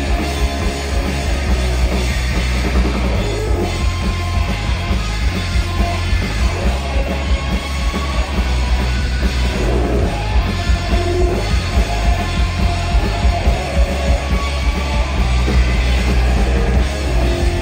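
Live rock band playing loud, with electric guitars and a drum kit.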